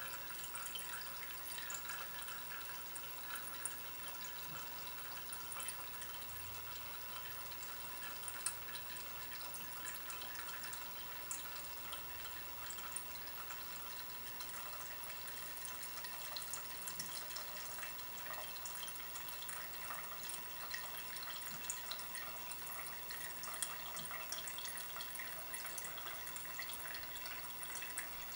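Fuel running in a thin, steady stream through a Dellorto carburettor jet from an upturned plastic bottle into a measuring cylinder: a faint, even trickle with small drips.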